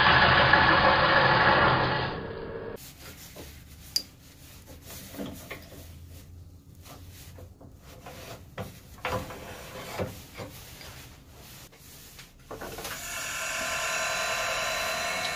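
Wood lathe turning a cherry branch: a turning gouge cutting the spinning blank gives a loud, rough scraping hiss for about the first two seconds. Then a quieter stretch of scattered clicks and knocks while the lathe is stopped, and near the end the lathe motor starts up and runs steadily with a whine, the blank spinning.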